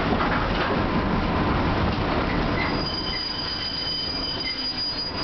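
Streetcar running on street track: a rolling rumble eases off, then from about two and a half seconds in the steel wheels squeal in thin, steady high tones as they take curved track and points.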